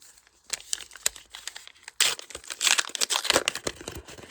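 Foil booster pack wrapper crinkling as it is torn open and handled. Light scattered rustles at first, then loud, dense crinkling from about two seconds in.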